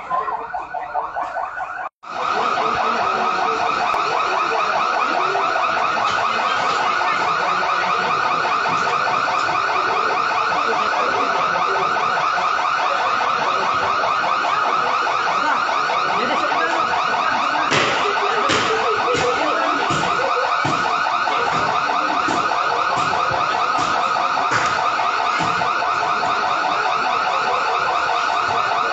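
Electronic alarm sounding loudly and without a break, a fast-warbling tone. It drops out for an instant about two seconds in, then runs on steadily.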